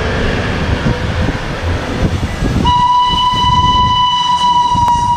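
Whistle of a Darjeeling Himalayan Railway B-class 0-4-0 steam locomotive, sounded about two and a half seconds in and held as one long steady high note over a low rumble.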